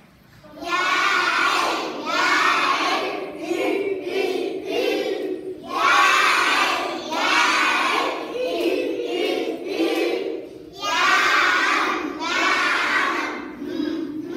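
A class of young children chanting English letter sounds together in unison, in three phrases about five seconds apart, each starting loud and then going on more softly.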